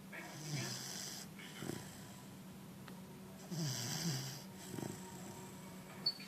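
Bernese mountain dog puppy snoring in its sleep: two long snoring breaths about three seconds apart. Near the end there is a brief sharp click.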